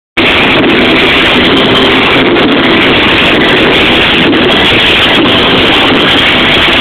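Loud electronic dance music from a big sound system, heard as a steady, heavily distorted wall of sound from an overloaded microphone.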